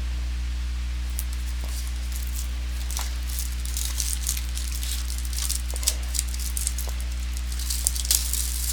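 Crackling and crinkling of trading-card pack wrappers being handled and torn open, in scattered sharp clicks that grow busier toward the end, over a steady low electrical hum.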